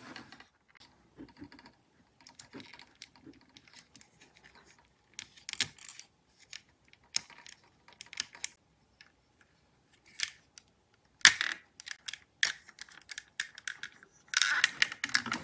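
Lego bricks and plastic parts clicking and clacking as they are handled and pressed together, in scattered, irregular clicks. The loudest click comes about eleven seconds in, and a dense run of clatter comes near the end.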